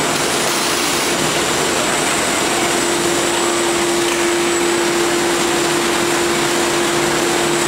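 Loud, steady factory machinery noise, an even rushing sound, with a steady hum joining about two and a half seconds in.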